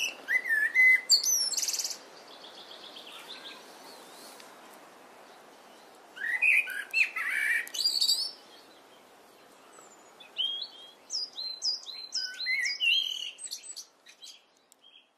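Common blackbird singing: fluty, warbled phrases that run into high twittering, in three bursts with pauses between, over a faint steady hiss.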